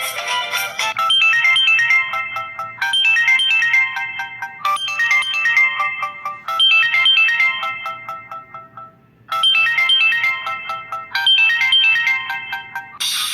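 Preloaded ringtone on a Samsung GT-I5500L phone: a bright, high-pitched electronic melody of short notes, repeating in phrases about every two seconds with a break of about a second just past the middle. At the very end it gives way to the next ringtone.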